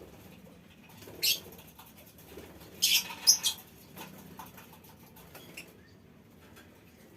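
Lovebirds in a colony aviary: a short shrill chirp about a second in and a louder burst of three or four shrill calls around three seconds in, with faint chatter between.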